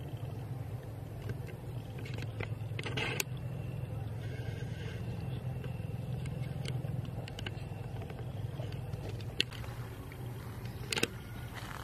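A steady low hum, like a distant engine, with a few faint clicks and rustles.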